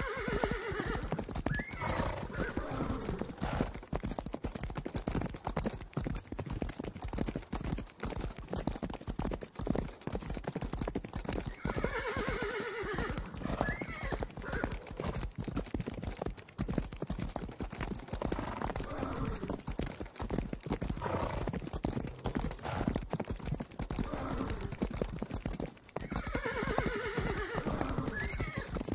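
Horse stampede sound effect: a herd of horses galloping, a dense, rapid drumming of hoofbeats, with a horse whinnying three times, about every thirteen seconds, as the same stretch of the effect loops.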